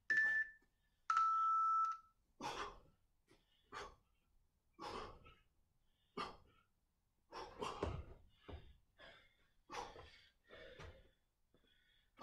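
Gym interval timer beeping: a short high countdown beep, then about a second in a longer, lower beep that starts the work set. After it come faint, irregular short puffs of breath from people exercising.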